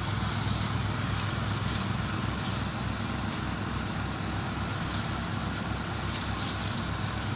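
A running engine's steady low drone with a regular throb of about four beats a second, under wind hiss on the microphone and a few faint rustles.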